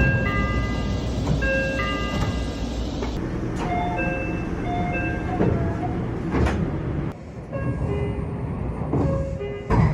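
Meitetsu train door chimes: several short electronic chime patterns of a few clear notes each, one after another, the signal given as the doors open or close. They play over the steady rumble of the train, with abrupt cuts between recordings about every three seconds.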